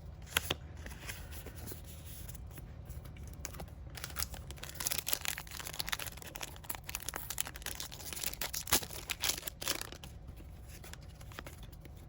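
Plastic card sleeves and foil booster-pack wrappers being handled while a trading card is sleeved: crinkling, tearing and rustling with scattered light clicks, busiest from about four to ten seconds in.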